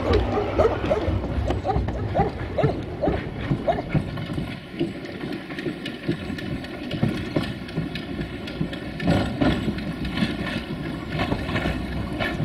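Narrow-gauge train hauled by steam locomotive 764.431 running along the line, with exhaust beats and the clatter of wheels over the rails. About four seconds in the sound turns quieter and steadier, with a faint steady whine under irregular clicks.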